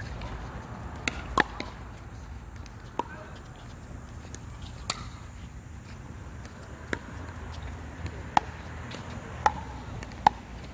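A pickleball rally: about nine sharp pops of paddles hitting the plastic ball and the ball bouncing on the hard court, irregularly spaced a second or two apart.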